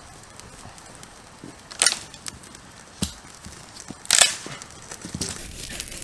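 Three sharp crackles or snaps, about a second apart, over a faint steady background. They are typical of dry birch bark and wood crackling as it burns or is handled. The last one is the loudest.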